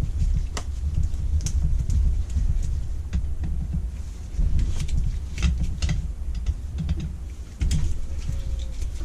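Irregular light clicks and taps of small metal parts and tools being handled while a carburettor is dismantled, over low bumping and handling noise.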